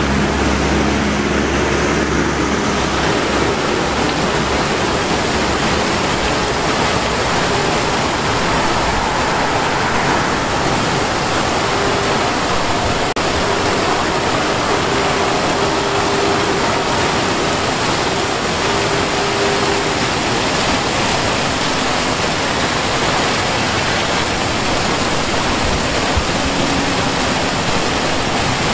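A two-tiered park fountain, its many arcing jets and water-spouting dog sculptures splashing into the basin: a steady, even rush of falling water.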